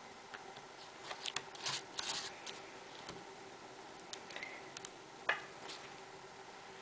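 Small clicks, taps and light paper scrapes of a hobby knife lifting adhesive half-back pearls off their sheet and setting them onto a cardstock flower, with one sharper tap about five seconds in.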